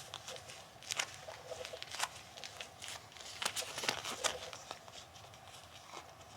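Bilpearl rubber gloves rubbed and pressed together, the rubber sticking and peeling apart in irregular sharp snaps and crackles with a few short squeaks, busiest a little past the middle.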